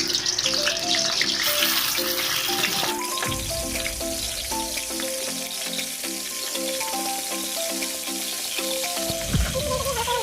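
Marinated chicken pieces sizzling in hot mustard oil in a kadai as they are added, loudest in the first three seconds and then settling into a steadier frying sizzle. Background music plays throughout.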